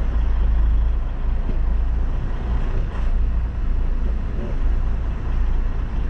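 Steady low rumble of a semi truck's diesel engine, heard from inside the cab.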